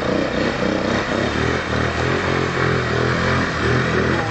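Quad bike (ATV) engine running under throttle, its pitch rising and falling as it revs.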